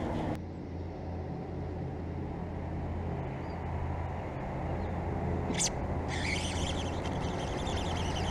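Steady low rumble of distant road traffic, with one sharp click about five and a half seconds in and a soft hiss coming up near the end.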